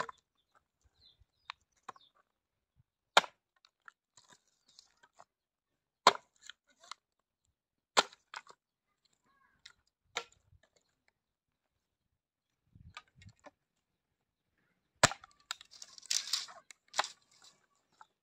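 Firewood being chopped: sharp, loud wooden cracks every two to three seconds. A run of crackling and splintering follows a strike about fifteen seconds in.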